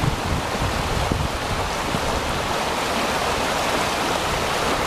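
Steady rushing of a fast-flowing glacial meltwater river, with wind buffeting the microphone in low gusts.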